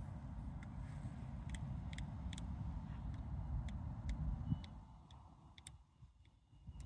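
DB class 628 diesel multiple unit approaching at low speed: a low diesel rumble that drops away about four and a half seconds in, with scattered sharp ticks. Near the end a faint steady high squeal sets in as it brakes into the halt.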